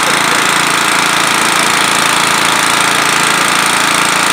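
Small engine of a hydraulic rescue-tool power unit running steadily, driving the extrication tool.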